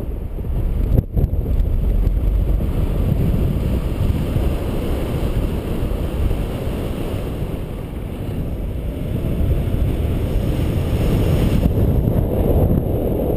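Airflow of a paraglider in flight buffeting the camera microphone: a steady low wind rumble, with a brief dropout about a second in.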